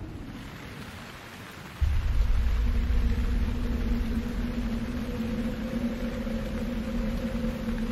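Thunderstorm: a low rumble of thunder dies away, then a heavy low rumble starts suddenly about two seconds in and carries on. A steady low hum with two held tones sets in under it soon after.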